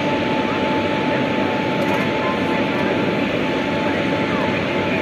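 WAG-7 electric locomotive standing coupled, its auxiliary machinery running as a steady drone with a constant high whine.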